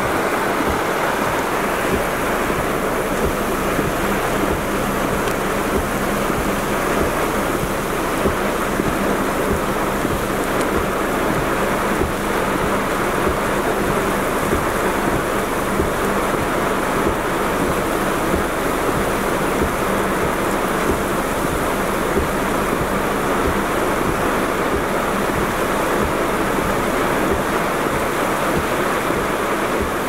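Heavy typhoon rain pouring steadily, heard from inside a car, with many small irregular hits of drops on the body.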